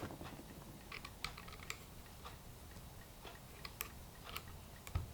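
Faint, irregular small clicks and taps of metal on metal as a stuck, damaged router collet is worked at to get it out.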